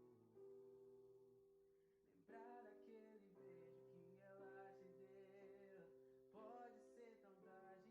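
Faint music: a slow song with guitar and held sung notes.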